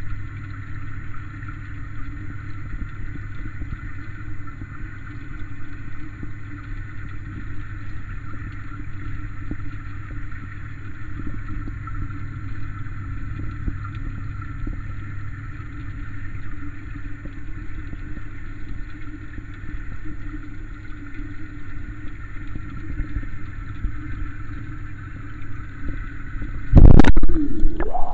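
Steady mechanical hum with a low drone, from the tank's water pump. About a second before the end it is broken by a sudden very loud rush of handling and water noise.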